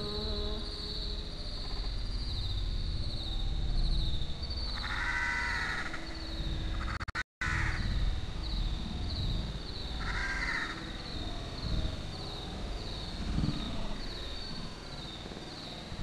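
An insect buzzing steadily in a high, pulsing trill, with a bird calling twice, about five and ten seconds in.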